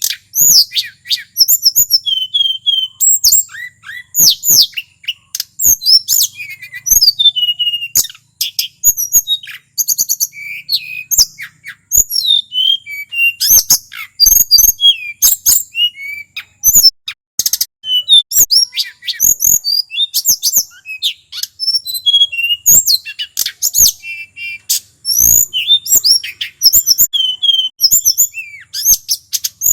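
Male tledekan gunung singing without a break, a fast run of high, varied whistled notes and quick trills.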